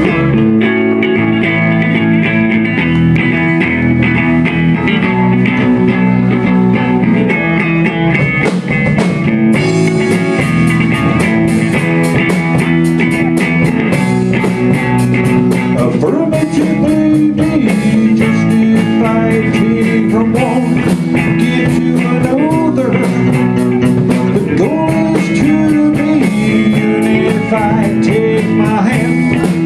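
Live rock band playing: electric guitar and bass over a drum kit. The sound grows fuller and brighter about nine seconds in.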